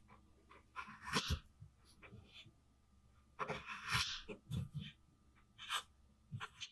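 Miniature kitchen knife cutting a small carrot on a tiny wooden cutting board: a few short crisp cuts and knocks of the blade against the board, about four in all, with light handling noises between them.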